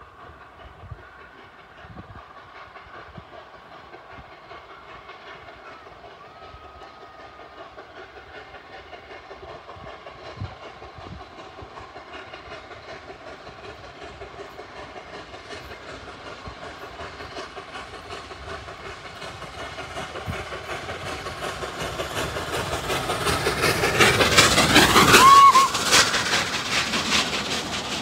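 LNER A3 Pacific Flying Scotsman, a three-cylinder steam locomotive, approaching and passing with its exhaust beats growing steadily louder. The sound is loudest as the engine goes by, with a brief whistle-like tone at the peak. Near the end the coaches clatter over the rail joints.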